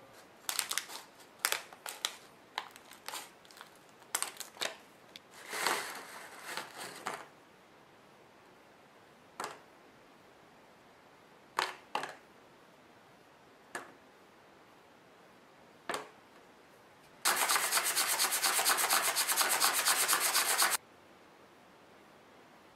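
Small clover-shaped candies and their plastic pouch handled in a cardboard box: a cluster of clicks and crinkles for the first seven seconds or so, then scattered single clicks. Near the end comes about three and a half seconds of steady rattling and rubbing.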